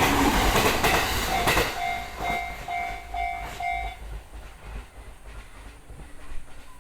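Four-car E217 series electric train passing close by, its wheels clicking over the rail joints, its noise dropping away about a second and a half in. The level crossing's electronic warning bell, the JR standard tone, rings on about five more times, roughly twice a second, and stops about four seconds in.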